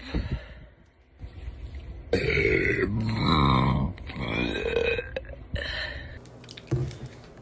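A woman burping: a short burp at the start, then a long, loud burp about two seconds in, followed by a few shorter burps.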